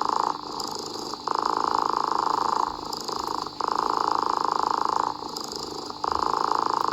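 Domestic cat purring steadily: it swells louder for a second or so, then eases, in a breathing rhythm about every two and a half seconds.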